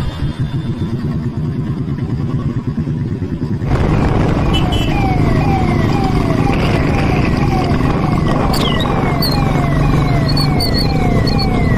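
Royal Enfield Bullet single-cylinder motorcycle engine thumping as the bike pulls away. About four seconds in the sound gets suddenly louder with road and traffic noise, and a police siren joins in, sweeping down in pitch about twice a second.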